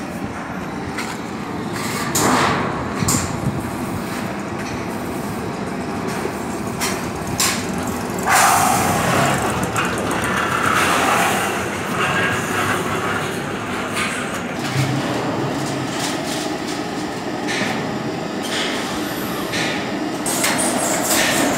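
A steady rumbling din with frequent short metallic knocks and clanks as copper tubing is handled against a stainless steel water tank and soldered to it.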